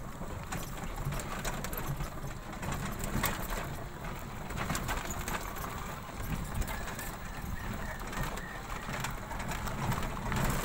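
Motorbike engine running steadily as the bike rides over a rough, mud-caked road, with scattered knocks and rattles from the bumps.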